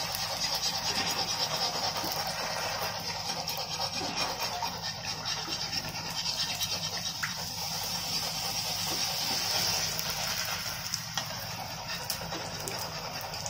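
Semolina puris (golgappe) deep-frying in hot oil in a steel kadhai: a steady sizzling with a fine crackle throughout.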